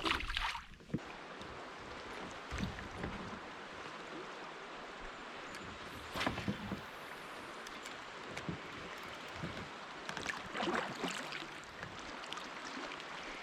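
Steady rush of creek water around a kayak, with a few short splashes and knocks now and then.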